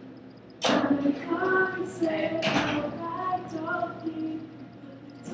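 Women singing a song with long held notes, no instrument heard. Two sudden noisy bursts, about two seconds apart, cut across the singing and are louder than it.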